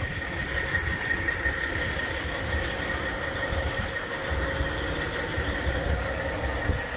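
Steady engine hum with a high, even whine, and wind rumbling on the microphone.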